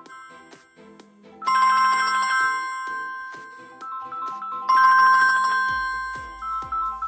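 Samsung Galaxy phone playing a musical ringtone: a short tune that repeats, with a bright, loud chord struck about every three seconds and a deep bass part joining near the end.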